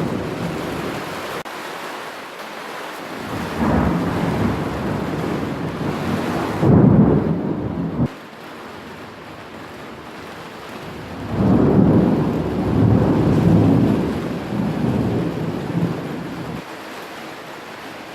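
Thunder rolling overhead in several long low rumbles over a steady hiss of rain. The loudest roll peaks about seven seconds in and cuts off abruptly a second later, and another long roll rises a few seconds after and fades out.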